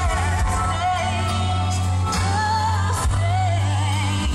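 Western Christian song played over outdoor loudspeakers: a singer's voice wavering in pitch over a steady low bass.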